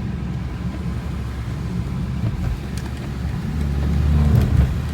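Tuned BMW G20 3 Series running on the move, with a steady low engine and tyre drone on a slushy road that swells briefly about three and a half seconds in.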